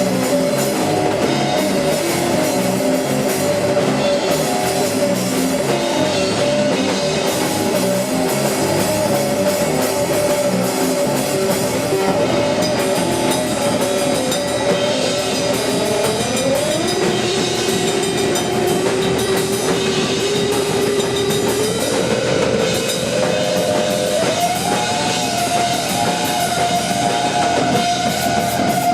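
A live math rock / post-hardcore band playing: electric guitars over a drum kit, dense and steady. About halfway through, a held guitar note slides up, and near the end the guitar notes waver.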